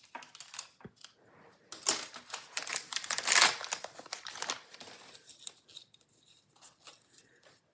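Small plastic wrapping crinkling and tearing as tiny blind-box pieces are unwrapped by hand. The rustling is busiest and loudest in the middle, then thins to scattered small clicks and rustles.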